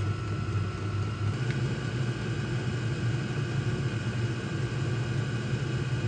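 Chinese all-in-one diesel air heater running on diesel: a steady hum from its blower and burner. A thin whine steps up slightly in pitch about a second and a half in.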